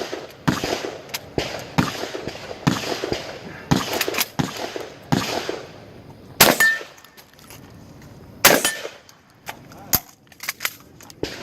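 Custom MKA 12-gauge semi-automatic shotgun firing shot after shot in quick runs, with two much louder shots about two seconds apart near the middle.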